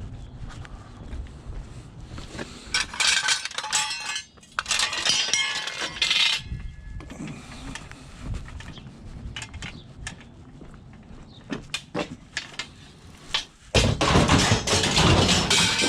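Loose scrap metal clattering and clinking as pieces are handled and dropped. It comes in louder spells about three seconds in and near the end, with scattered knocks between.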